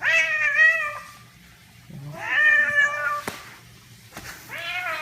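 A domestic cat meowing three times: long, drawn-out meows about two seconds apart. A short click follows the second meow.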